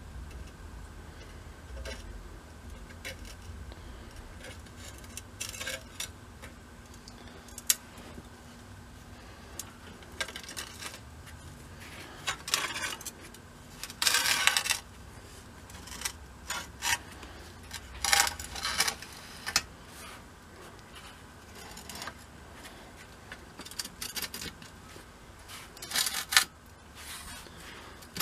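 A glass pane sliding and scraping in the channels of a metal frame, with light clinks and taps of glass against metal, in short separate bursts.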